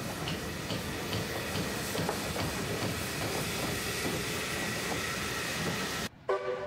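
Steam locomotive running slowly past: a steady hiss of steam with a light, regular clicking about twice a second. The sound cuts off about six seconds in.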